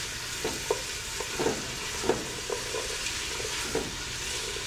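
Mirepoix of diced onions, carrots and celery sizzling steadily in avocado oil in a stainless steel stock pot, as a spatula stirs it and knocks and scrapes against the pot about seven times. The sizzle is the sign that the vegetables are sautéing and softening.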